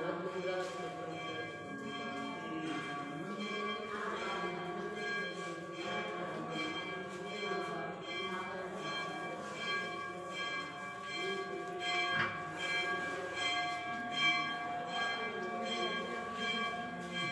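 Temple bells ringing over and over, their tones hanging on between strikes, with one sharper strike about twelve seconds in and voices murmuring underneath.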